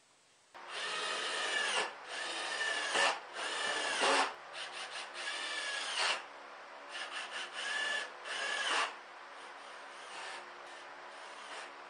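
Cordless drill driving screws into a pine-and-plywood box frame, its motor whining in a series of short runs over about eight seconds. The whine dips at the end of several runs.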